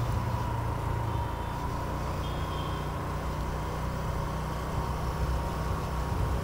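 A road vehicle driving: a steady low engine and road rumble, with two short faint beeps about a second and two seconds in.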